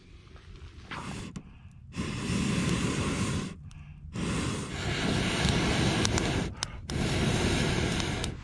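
A person blowing on a newly lit kindling fire to bring it to flame: three long, loud rushes of breath, each one to two and a half seconds, with short pauses between them.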